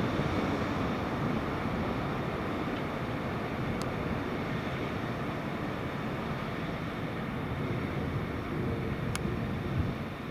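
A train running through the station: a steady, even rumble, with two faint clicks about four and nine seconds in.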